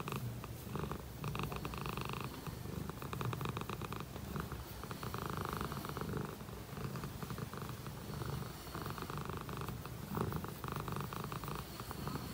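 A Dragon Li (lihua) tabby cat purring steadily while its chin is scratched. The purr swells and fades in cycles of a second or two.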